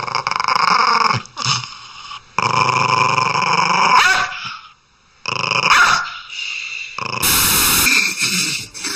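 Dog growling in several stretches, each cut off suddenly, with a brief near-silence about five seconds in.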